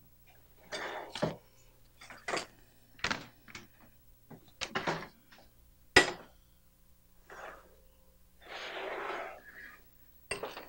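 Glass bowls and metal trays being set down and shifted on a table: a string of separate clinks and knocks, the sharpest about six seconds in.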